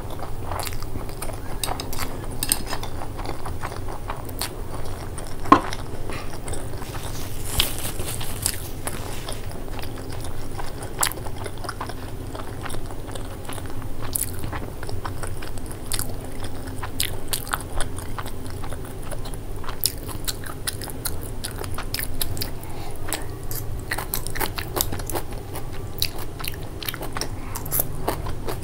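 A person chewing a mouthful of black bean sauce noodles, a steady run of small wet mouth clicks. There is one sharper click about five and a half seconds in.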